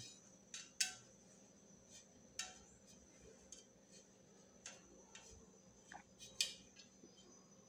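Cotton dish towel rustling and hands lightly knocking and brushing against the inside of an aluminium pressure cooker as the towel is pressed into the bottom of the pot. A few short, faint scrapes and taps, scattered and irregular.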